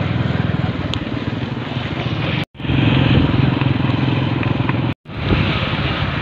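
Motorcycle engine running at road speed with wind rushing over the microphone. The sound cuts out abruptly twice, about two and a half and five seconds in, where clips are joined.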